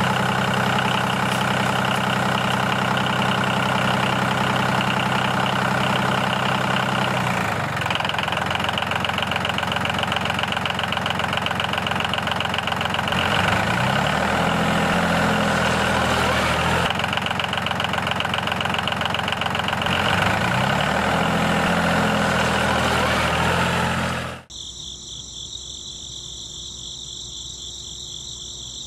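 Tractor engine sound running steadily, its revs rising and falling twice. About 24 seconds in it stops suddenly, and crickets chirp.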